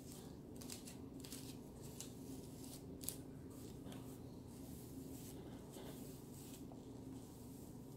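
Faint, irregular brushing sounds of a plastic-bristled brush being drawn through a section of damp curly hair, the loudest stroke about three seconds in.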